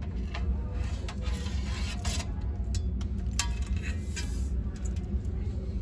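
Stacked decorative platters clinking and scraping as they are pulled from a shelf and handled, a few short clinks over a steady low store hum.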